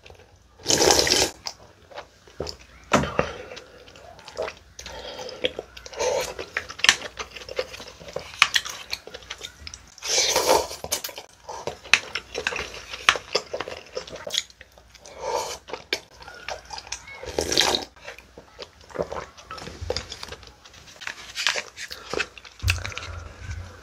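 Close-miked eating sounds: several loud slurps of cold buckwheat noodles and their broth from a bowl held to the mouth, with wet chewing between them.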